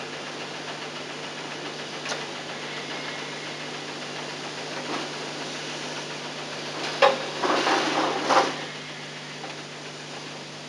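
Metal upholstery clips being cut and pulled off the underside of a car seat: single sharp clicks about 2 and 5 seconds in, then a quick run of snapping and clattering from about 7 to 8.5 seconds. A steady hum and tape hiss runs beneath.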